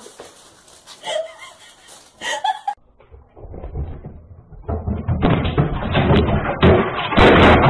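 A dense run of knocks and thumps that starts about three seconds in and gets louder, loudest near the end.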